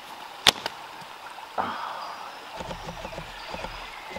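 Hand catapult (slingshot) firing a stone: one sharp snap of the released bands about half a second in, with a fainter click just after. A softer second sound follows about a second later, then low rustling.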